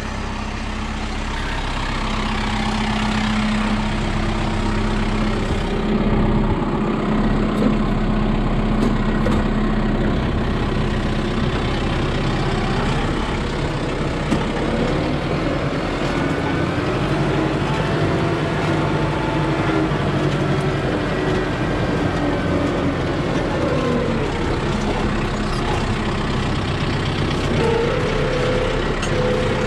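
Kubota tractor's diesel engine running steadily as the tractor is driven, heard from the operator's seat, with a couple of small clicks and knocks along the way.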